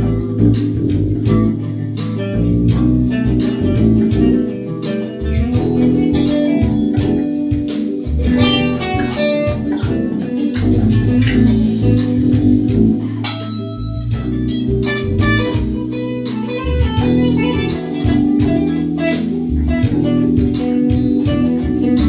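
Bass guitar played continuously, a run of plucked notes with strong low tones and changing pitches, with higher plucked-string notes over the top.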